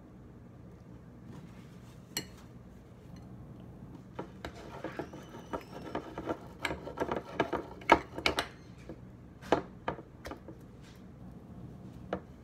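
Slime being stirred in a bowl: a utensil scraping and knocking against the bowl in irregular clicks, sparse at first and busier from about four seconds in, with the loudest knock about two-thirds of the way through.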